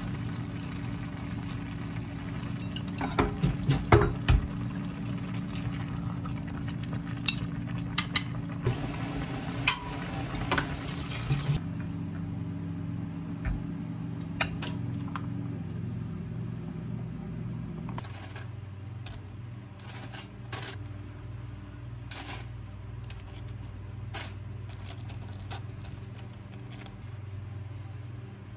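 Kitchen handling sounds: chopsticks and utensils clicking and knocking against a pan and dishes, in clusters a few seconds in and again around the middle, with scattered single clinks later. A steady low electrical hum runs underneath and drops a little past the middle.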